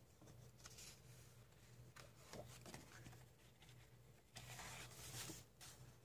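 Faint rustle of paper as coloring-book pages are turned and smoothed by hand, with a louder sweep of paper about four and a half seconds in, over a low steady hum.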